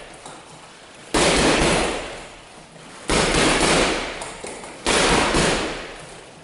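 Gloved punches landing on a Ringside heavy punching bag: three hard hits about two seconds apart, each a sudden loud smack that fades away over a second or more.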